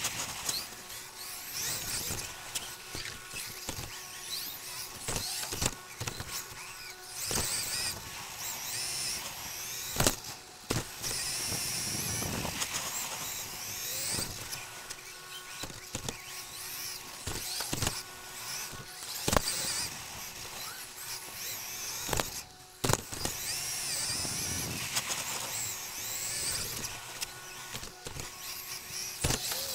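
Onboard sound of an Xray XB2 2WD electric buggy running flat out: its 13.5-turn brushless motor and gear drive whine high, rising and falling in pitch with the throttle, over a steady rush of tyres and drivetrain. Sharp knocks come now and then as the chassis hits bumps and landings.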